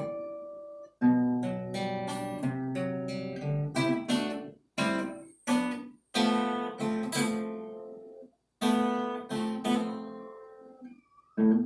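Acoustic guitar playing a song's intro: chords struck and left to ring out, broken by several brief stops between phrases.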